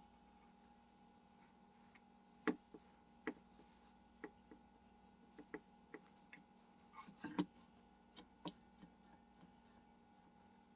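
Scattered sharp clicks and taps of small metal parts and hand tools on a Rochester Quadrajet carburetor being taken apart, the loudest a little after two seconds and a cluster about seven seconds in, over a faint steady hum.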